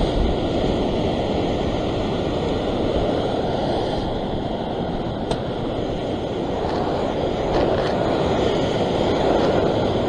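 Heavy ocean swell breaking and washing over a coastal rock ledge: a steady rush of surf and white water that swells a little louder in the later seconds.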